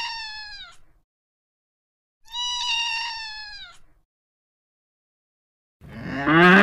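A domestic cat meowing twice, each meow drawn out and falling in pitch at its end. Near the end a louder, longer call with rising pitch begins.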